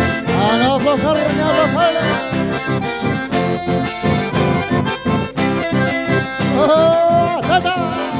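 Live dance music from two accordions and an acoustic guitar, with a steady pulsing rhythm.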